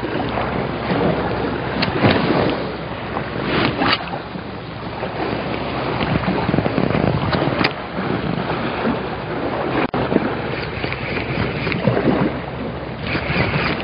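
Wind buffeting the microphone over the wash of the sea against the rocks, a rushing noise that swells and eases, with a few brief clicks.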